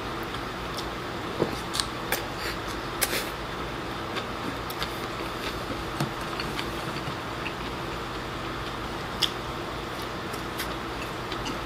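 Eating sounds: chopsticks tapping a ceramic rice bowl and plate, with chewing, as scattered small clicks. A steady low hum lies under them.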